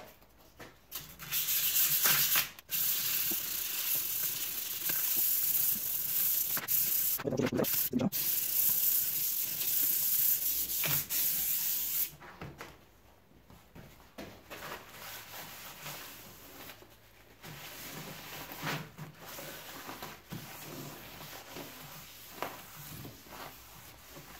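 Hand sanding the steel body of a circular saw blade with 280-grit wet-or-dry sandpaper to take off leftover surface rust. A steady scratchy hiss runs for about ten seconds with a couple of short breaks, stops suddenly, and is followed by quieter, intermittent rubbing strokes.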